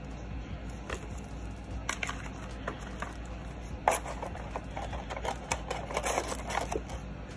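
Paper and cardboard being handled: a paper instruction leaflet folded and set down, then a cardboard box and its tray moved about on a table, with scattered light taps and rustles. A sharper knock about four seconds in, and a busier stretch of crackly rustling just after it.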